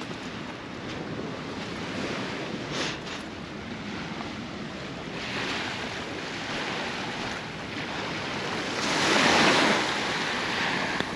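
Sea surf washing steadily onto a beach with some wind, one wave breaking louder about nine seconds in. There are two faint clicks about three seconds in.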